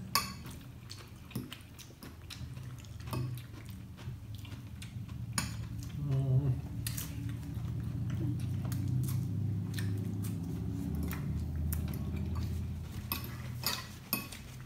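Eating sounds: a fork repeatedly clicking and scraping against a plastic bowl and plates, with chewing. A low rumble swells in the middle and fades again before the end.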